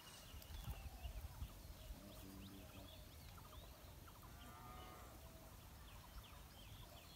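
Faint outdoor ambience: small birds chirp again and again, and poultry give a couple of short calls about two and four and a half seconds in, over a low wind rumble on the microphone.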